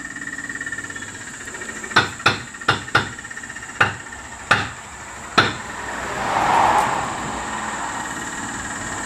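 Seven sharp knocks in an irregular series, starting about two seconds in and ending by about five and a half seconds, over a steady low hum, followed by a brief hissing swell.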